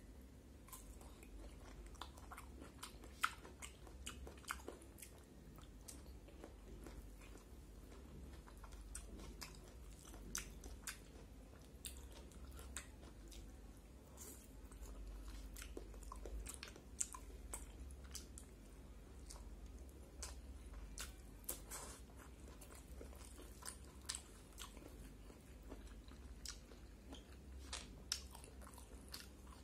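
Close-up eating sounds of a person chewing rice with curried bamboo shoots and greens: wet chewing and lip smacks, with sharp mouth clicks at irregular intervals, over a faint low hum.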